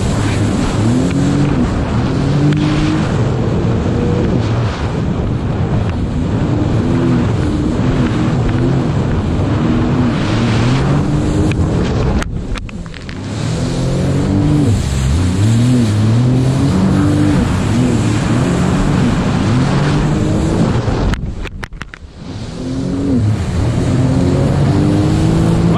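Sea-Doo GTR jet ski's engine revving up and down as the craft rides over small waves, its pitch rising and falling every second or two over the rush of spray and wind. The sound drops away briefly twice, about halfway through and a few seconds before the end.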